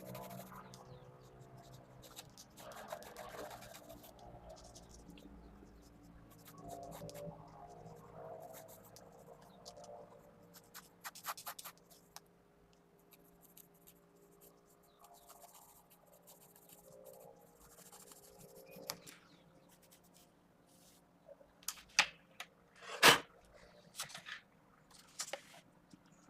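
Mechanical pencil scratching on paper in short strokes over soft background music, with a few sharp clicks in the last few seconds.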